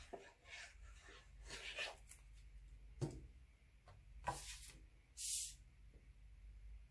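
Sheets of cardstock handled by hand: soft rustling and sliding of paper, a light knock about three seconds in, and two short swishes of card sliding over card at about four and five seconds in as a glued panel is laid onto a backing mat and aligned.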